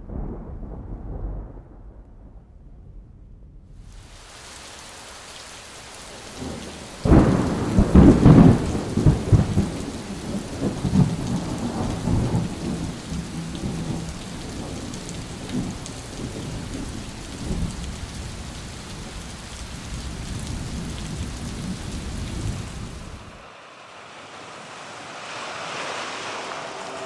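Thunderstorm: steady rain hiss with a loud clap of thunder about seven seconds in that rolls and rumbles on for several seconds. Near the end the rain cuts off and a quieter sound with a few steady tones comes in.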